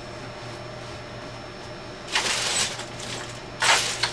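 Two short bursts of clatter and rustling, about two seconds in and again near the end, from someone rummaging through tools and clutter while hunting for a screwdriver, over a steady low hum.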